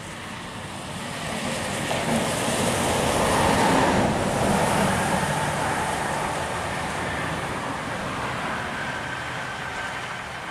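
A coach bus passing at highway speed, its engine and tyre noise on the rain-wet road swelling to a peak about four seconds in, then fading as it drives away.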